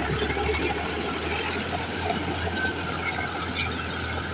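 Tractor engine running steadily under load, pulling a rotary tiller that churns through the soil, with a constant low hum.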